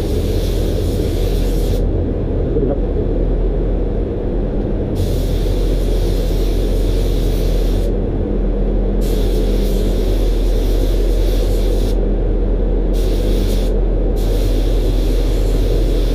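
DeVilbiss gravity-feed spray gun hissing as it sprays primer onto body panels, triggered in bursts of two to three seconds with short pauses between, over a steady low rumble.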